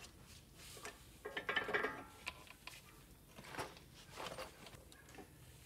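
Brake pads scraping and clinking against metal as they are pulled out of a Lexus front brake caliper, with the loudest ringing rattle about one and a half seconds in and a few lighter clinks after.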